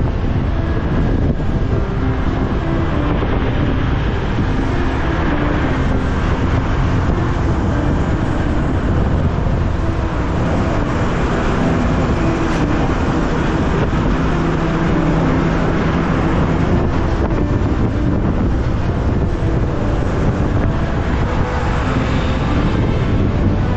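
Wind rushing over a helmet-mounted action camera's microphone on a moving motorbike, with the low drone of engines and passing traffic underneath. The noise is loud and steady, and low engine tones shift in pitch now and then.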